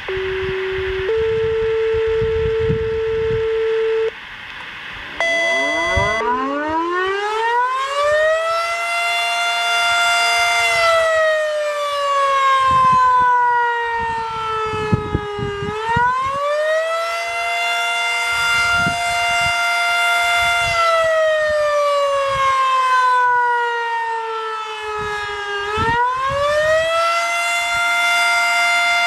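Steady dispatch paging tones open the sequence: a lower tone for about a second, a higher one held for about three seconds, then a short third tone. About six seconds in, a W.S. Darley Champion fire siren winds up to a held high pitch. It then runs its full attack cycle, with a slow fall followed by a quick rise back to the top, about every ten seconds.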